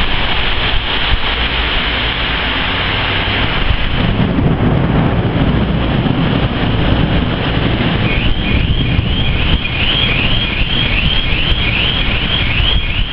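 Heavy storm with strong gusting wind and driving rain: a loud, steady rushing, with a deeper rumble swelling about four seconds in. From about eight seconds in, a high rising whoop repeats about twice a second.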